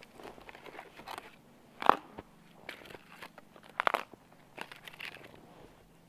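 Footsteps crunching in snow: a few slow steps, the clearest about two seconds in and again about four seconds in.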